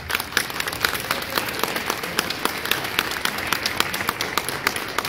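Audience applauding: many people clapping at once, a dense patter of hand claps.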